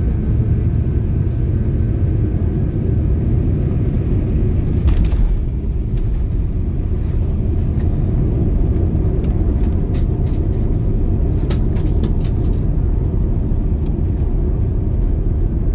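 Airbus A350 rolling out on the runway after touchdown, heard from inside the cabin: a steady, loud low rumble of engines and wheels as the aircraft decelerates with its spoilers up. There is a single thump about five seconds in, and a few light rattles later.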